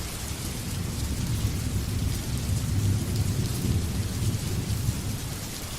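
Steady rain falling, with a low rumble of thunder that swells in the middle and fades.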